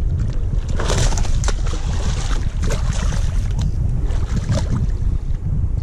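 Steady low rumble of wind on the microphone, with several brief splashes as a hooked tarpon thrashes at the surface beside the boat.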